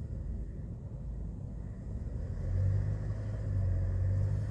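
Hyundai Porter II truck's diesel engine and road noise heard from inside the cab while driving: a steady low rumble, with the engine's low drone growing stronger about halfway through.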